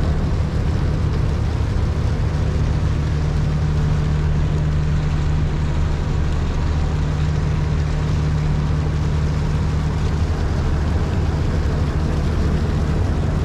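Engine of the passenger ship Sabuk Nusantara 71 running steadily: an even low hum with a rushing noise over it.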